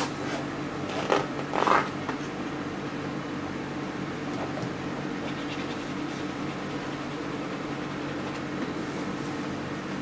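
Painting tool scraping across an oil-painted canvas, two short scrapes about a second in, over a steady low hum.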